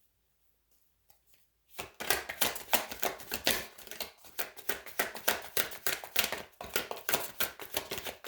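Tarot deck being shuffled by hand: a rapid, continuous run of card clicks and slaps that starts about two seconds in.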